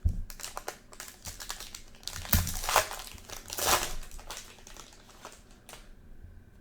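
Foil wrapper of a trading card pack being torn open and crinkled by hand, in a run of irregular crackles and rasps that die down near the end.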